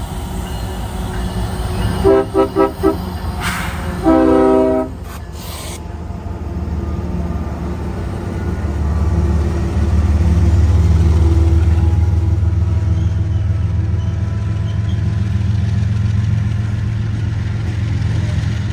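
CSX freight diesel locomotive's multi-note air horn sounding four quick toots and then one longer blast, as a warning at a grade crossing. After that the lead diesel-electric locomotives pass close by with a loud, steady low rumble of engines and wheels.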